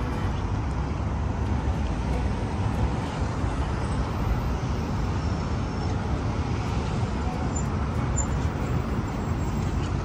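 Steady outdoor background noise, mostly a low rumble with an even hiss above it and no distinct events.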